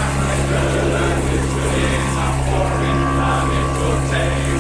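Small outboard motor on an inflatable rib running at a steady speed, a constant drone over a steady hiss.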